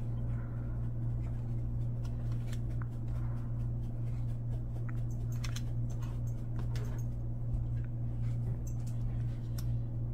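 Football trading cards being flipped through by hand and dealt onto a pile, making scattered light clicks and slides, over a steady low hum.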